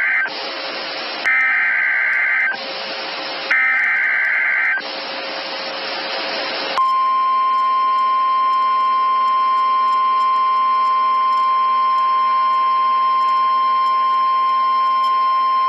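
Emergency Alert System SAME header: bursts of warbling two-pitch data tones about a second apart, three in all, with radio hiss between them. It is followed by a steady single-pitched NOAA Weather Radio alert tone held for about nine seconds, signalling an incoming weather warning.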